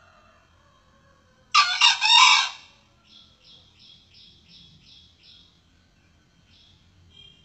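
Male junglefowl crowing once about one and a half seconds in: a short, loud, harsh call in three quick parts. A small bird follows with a string of about seven faint, evenly spaced high notes.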